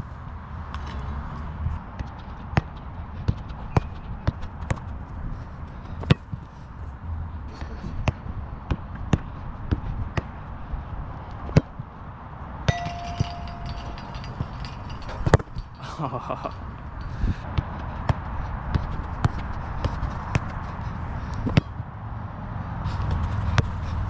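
Footballs being kicked and bouncing on artificial turf: a long run of separate sharp thuds at irregular intervals, mixed with footsteps, over a low steady rumble.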